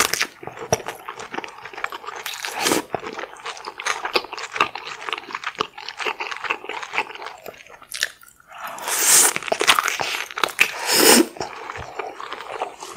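Close-miked wet chewing and mouth sounds of seafood meat in a thick sauce: a steady run of small sticky clicks and smacks, with louder bites or slurps about two and a half seconds in, around nine seconds and again around eleven seconds.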